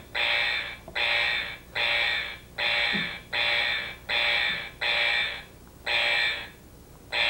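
Electronic buzzer tone sounding in regular pulses, a little over one a second, each about half a second long, with a pause of about a second near the end.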